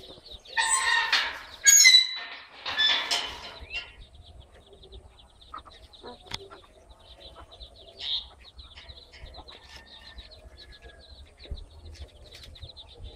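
Domestic chicks peeping in a rapid, high-pitched run beside a mother hen, with a few loud, harsh chicken calls in the first four seconds, the loudest just before two seconds in.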